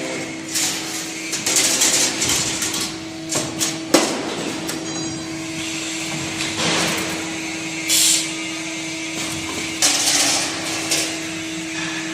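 Automatic wire-hanger bending and welding machine running: a steady hum under irregular hissing bursts and mechanical clanks every second or two, with one sharp clank about four seconds in.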